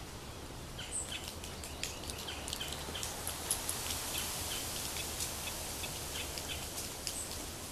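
Outdoor ambience of scattered short bird chirps over a high insect hum, with a low steady hum underneath.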